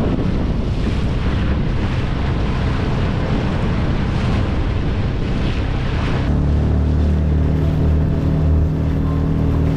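A motorized kayak under way: wind rushing over the microphone and water splashing along the hull over the motor's steady running. About six seconds in, the wind noise drops and the motor's low, even hum comes through clearly.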